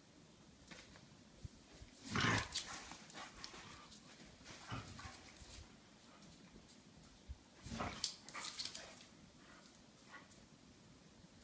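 Two dogs play-fighting, one giving short vocal sounds, loudest about two seconds in and again near eight seconds in, with quieter ones in between.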